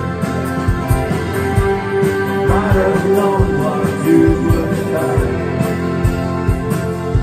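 Live rock band playing: electric and acoustic guitars over drums, with a male lead vocal.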